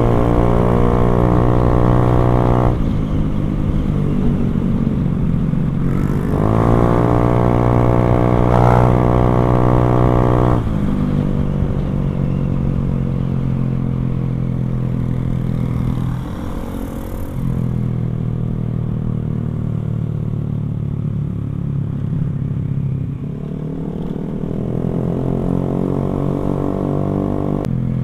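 Motorcycle engine through a NOB1 aftermarket exhaust, riding along. The pitch rises as the throttle opens about six seconds in, drops back around ten seconds, and climbs again near the end.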